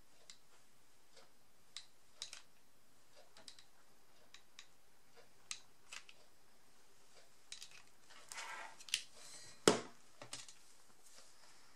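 Scattered light clicks and taps of craft materials being handled on a cutting mat, a short rustle about eight and a half seconds in, and one sharp knock just before ten seconds, the loudest sound.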